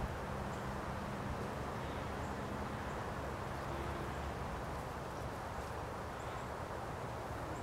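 Steady outdoor background noise, a low rumble and hiss, with faint short high chirps of small birds scattered through.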